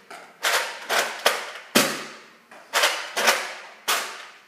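Unmodified Nerf Recon CS6 spring-powered dart blaster being primed and fired in quick succession: about seven sharp snaps and clacks. Each one trails off in the echo of a hard-floored hallway.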